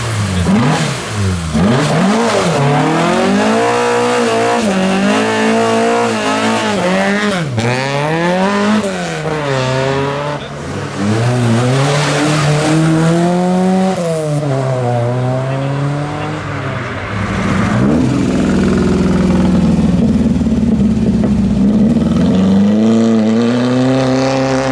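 Classic car engines revving hard as the cars pull away one after another, the pitch climbing and dropping back again and again with each blip and gear change. In the later part a steadier, rougher engine note.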